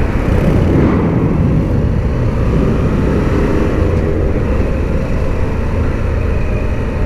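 Wind rushing and buffeting over the microphone, mixed with the engine and road drone of a Harley-Davidson Pan America motorcycle being ridden, steady throughout.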